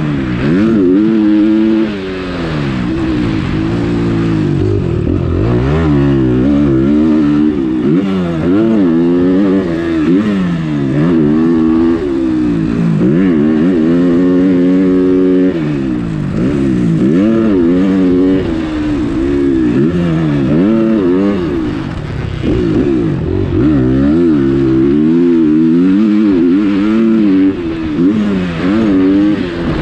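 Motocross dirt bike engine revving up and dropping back over and over, the pitch climbing and falling every second or two as the rider works the throttle and shifts through the gears.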